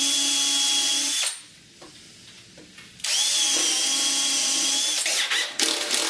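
Cordless drill boring holes into plywood at steady speed: one run stops a little over a second in, a second starts about three seconds in, and it ends in short stop-start bursts.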